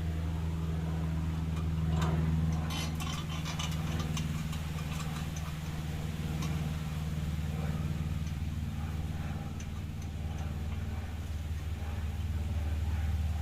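Steady low engine hum with a quick run of light clicks from about two to four seconds in, and a few more clicks later.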